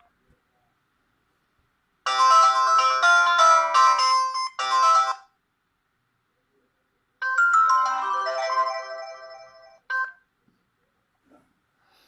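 Pirelli DP-L10 mobile phone playing polyphonic ringtones on its Winbond W56940 40-voice sound chip. Two short bright melodic snippets of about three seconds each, separated by silence, with the second fading out.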